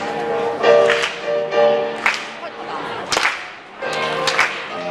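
A grand piano played live, with a voice singing over it; sharp crisp accents cut through about once a second.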